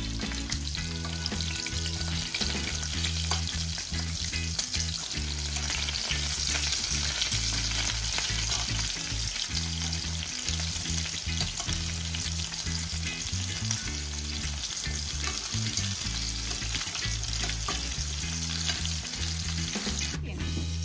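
Egg-coated minced-meat cutlets sizzling in hot oil in a frying pan, with light clicks as two forks turn them over. The sizzle cuts off suddenly near the end.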